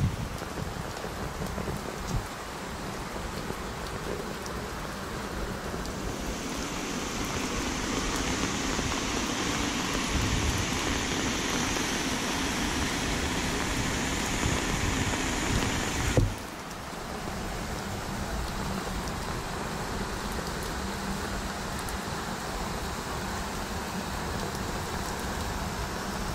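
Heavy rain falling steadily as a hiss, growing stronger from about six seconds in; a thump about sixteen seconds in, after which the hiss is suddenly quieter.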